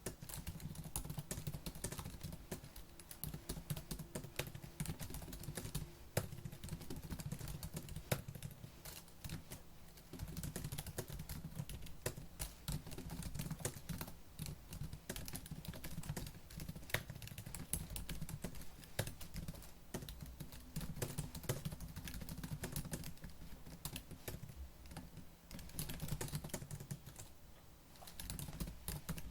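Fast typing on a laptop keyboard: a dense, continuous patter of key clicks, easing briefly near the end before picking up again.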